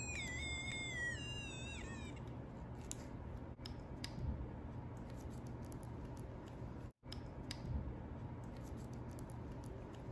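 The little speaker of a solar-powered music IC board gives a thin, high electronic tone that wavers and glides in pitch for about two seconds, then stops. Hearing this sound is the sign that the circuit is connected. Faint clicks of wires being twisted together by hand follow.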